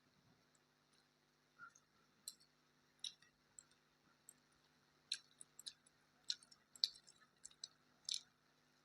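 Mouth sounds of eating: soft, wet clicks and smacks of chewing, scattered at first and coming closer together in the second half.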